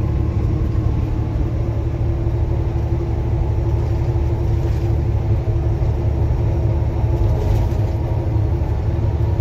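Steady engine drone and road rumble heard from inside a truck cab cruising at highway speed. It is a low, unchanging rumble with a constant hum above it.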